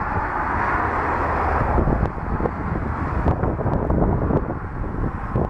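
Jet airliner on short final: a steady rush of its engines, easing a little about two seconds in, over a low rumble of gusting wind on the microphone.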